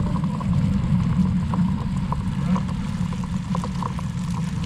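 A steady low motor hum with light, scattered ticks over it.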